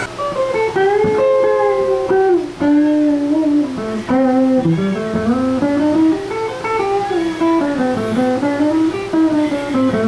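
Les Paul-style solid-body electric guitar played through a small Roland combo amplifier: a single-note, bluesy lead line with notes bent up and down.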